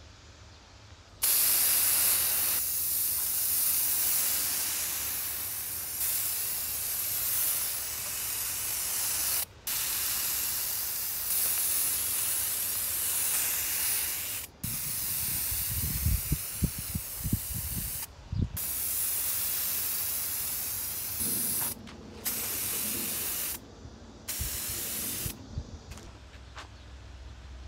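Spray paint hissing from an aerosol can in long bursts as a steel chair frame is coated red, with short pauses between passes. A few low bumps sound about halfway through.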